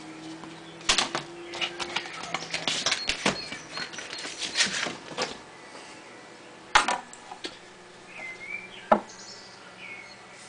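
Handling noise of a 12-inch vinyl record and a DJ turntable: irregular clicks, knocks and rustles, with the sharpest knocks about a second in and around seven and nine seconds in.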